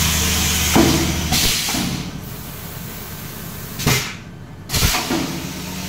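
PET bottle blowing machine's pneumatics: two bursts of compressed air hissing in the first two seconds, then a few sharp knocks from the cylinders and mould.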